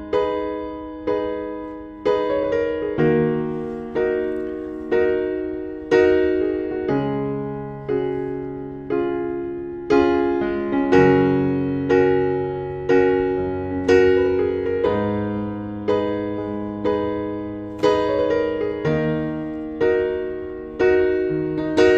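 Background piano music: gentle keyboard chords and notes struck about once a second, each fading away before the next.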